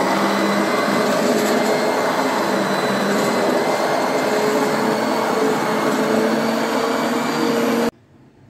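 Electric hand (immersion) blender running steadily in a pot of soft-boiled pearl barley and rice, pureeing it to a smooth mash. The motor stops abruptly near the end.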